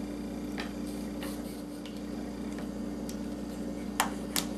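Light clicks and taps of small tools and parts being handled on a workbench, with two sharp clicks close together near the end, over a steady low hum.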